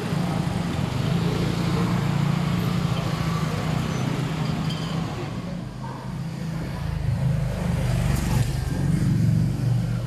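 Street traffic: a motor vehicle's engine running close by with a steady low hum, louder in the last few seconds.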